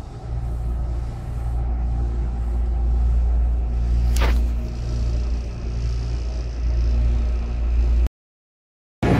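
Interior of a moving CAF-built commuter train: the steady low rumble of the car running along the rails, with a short whoosh about four seconds in. The sound cuts off abruptly near the end.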